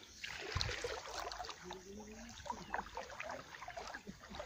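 Flowing shallow water sloshing and trickling, with small irregular splashes as someone wades through it.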